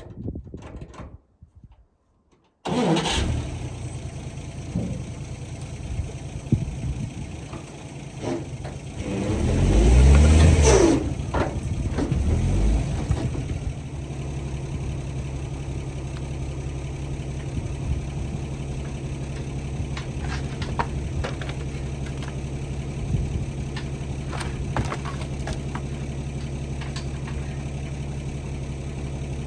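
An engine starts suddenly about three seconds in and revs up and down once. It then settles into a steady idle.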